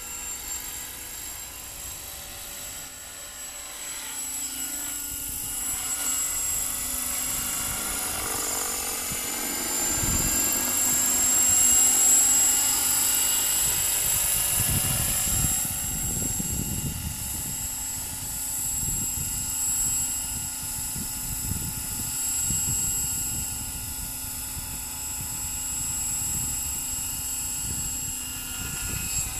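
Radio-controlled Trim Corporation Accurate 550 helicopter flying, a steady high-pitched whine of motor and rotors whose pitch glides up and down as it manoeuvres, loudest about twelve seconds in. Low gusty rumbling comes and goes through the middle.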